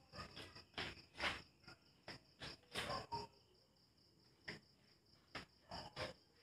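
Crickets chirping steadily in the background, a continuous high trill. Over it come irregular knocks and rustles from someone moving close to the microphone.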